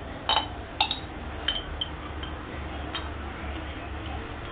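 A metal spoon clinking against small glass jars while jam is spooned into them: a few light, ringing clinks in the first two seconds and one more about three seconds in.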